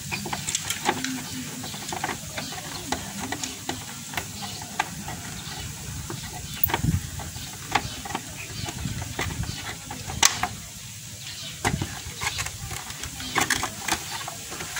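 Scattered small clicks and taps from a screwdriver backing out a screw and hands working a plastic motorcycle side cover loose, over a steady hiss. The sharpest click comes about ten seconds in.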